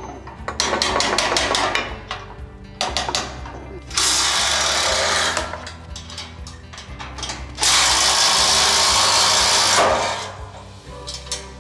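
Bolts being tightened on a steel machine frame with a ratcheting wrench: runs of rapid ratchet clicking, over low background music.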